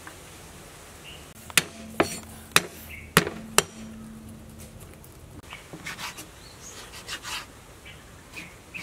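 Five sharp knocks of a kitchen knife chopping on a wooden cutting board, in quick succession during the first half, then fainter, lighter ticks.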